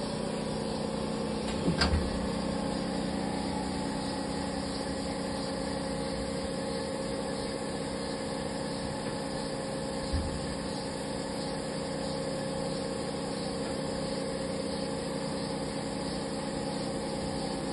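Steady machine hum with several held tones from a powered-up Haas SL-20T CNC lathe, with a sharp knock about two seconds in and a dull thump about ten seconds in.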